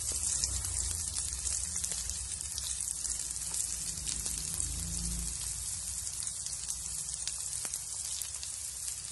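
Sliced small onions (shallots) frying in sesame oil in a kadai: a steady sizzle with scattered small crackles, and a low hum underneath.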